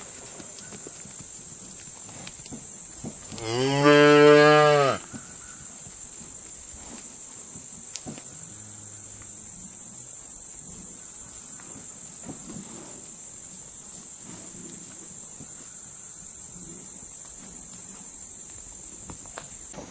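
Cattle mooing: one loud moo lasting about a second and a half, a few seconds in, then a faint, short, low moo a few seconds later.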